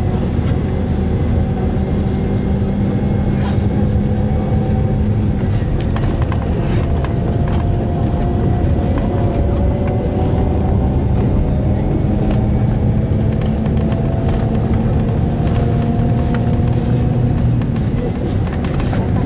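Bus engine and road noise while the bus is driving: a steady low drone whose pitch drifts slowly up and down, with scattered rattles and knocks.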